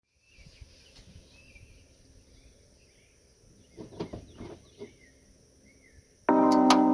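Quiet outdoor ambience with birds chirping and a steady high whine, and a few knocks about four seconds in. Guitar music starts abruptly near the end.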